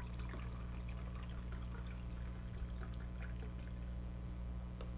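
Milk poured from a carton into a tall glass of coffee, a light, irregular trickling.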